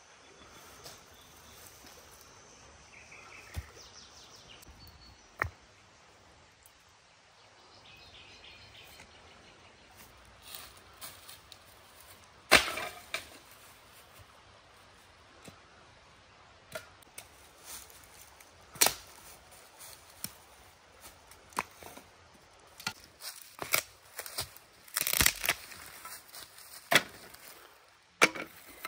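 Knife knocking on a wooden cutting board as vegetables are cut: irregular sharp knocks, a strong one about a third of the way in and a quick cluster near the end.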